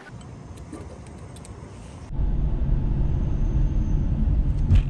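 Car driving, with a steady low engine and road rumble heard from inside the cabin, starting abruptly about two seconds in after a quieter stretch with a few faint clicks. A brief thump comes near the end.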